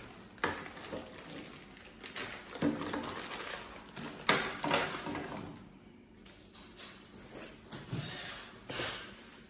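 Handling noises from unpacking: irregular rustles, light knocks and clunks as parts and packaging are moved about.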